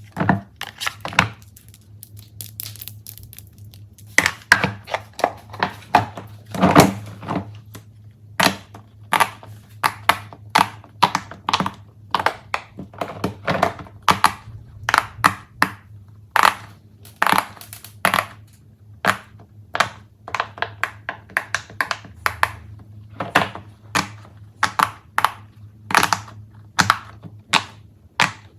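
Fidget toys being pressed and handled: a long, irregular run of sharp clicks and pops, two or three a second, over a steady low hum.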